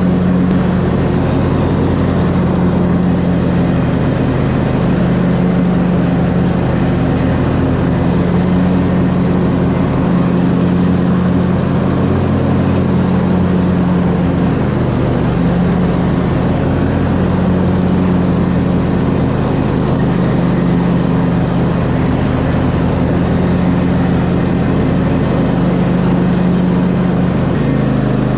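Gasoline lawn mower engine running steadily under load, with a low, even hum that wavers slightly in pitch.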